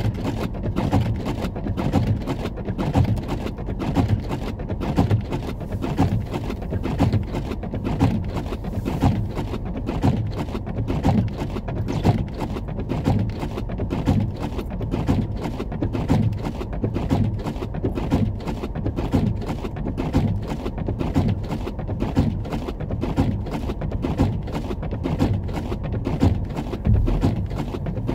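Low rumble inside a car driving on a snowy road, with many small uneven knocks throughout.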